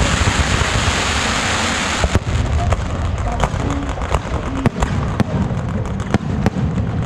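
Firecrackers going off as a salute: a dense, continuous crackle for about two seconds, then many loud separate bangs at an irregular pace.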